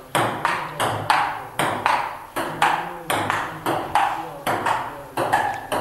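Table tennis rally: the ball clicking back and forth between the bats and the table in a quick, even rhythm, about two and a half hits a second.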